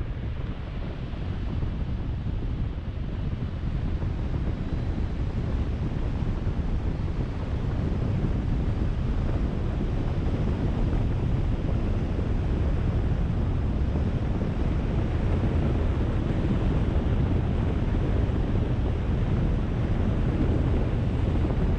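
Wind from a paraglider's flight rushing over the camera microphone as a steady, low rumbling noise. It grows louder over the first several seconds, then holds.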